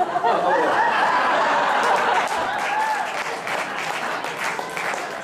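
Theatre audience applauding, with voices calling and laughing over the clapping in the first few seconds.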